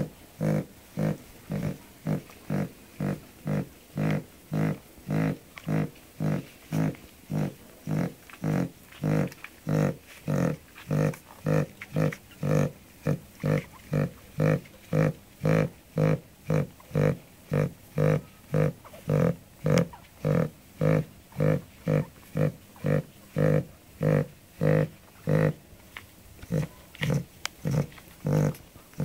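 Cavalier King Charles Spaniel snoring in a quick, even rhythm, nearly two short rasping snores a second.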